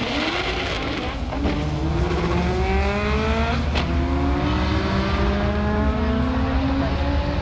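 Drag-racing car accelerating hard down the strip, its engine pitch climbing and dropping back at upshifts about a second and a half and nearly four seconds in, then climbing again.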